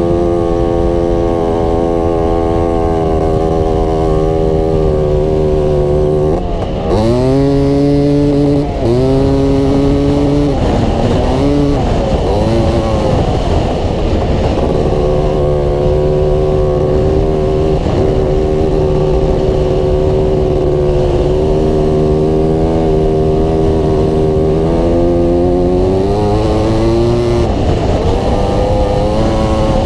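Off-road vehicle engine running under way on sand. Its pitch climbs and then drops in steps a few times, like shifting through the gears, and holds steady for a long stretch in the middle, over a steady rushing hiss of wind on the microphone.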